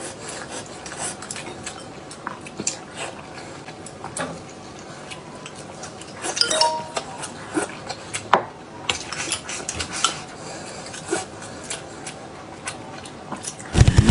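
Spoons or chopsticks clinking and scraping against bowls and dishes during a meal, in irregular scattered taps.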